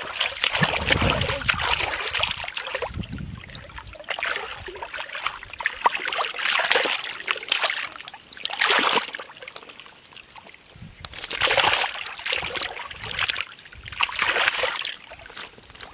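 Thick muddy water sloshing and splashing in irregular bursts as a person wades and stirs through a water-filled mud hole in rubber boots. Two dull thumps come in the first three seconds.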